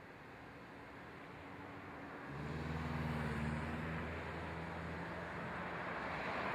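A vehicle approaching: a rushing noise that grows steadily louder, with a low hum that comes in a little over two seconds in and fades out about two and a half seconds later.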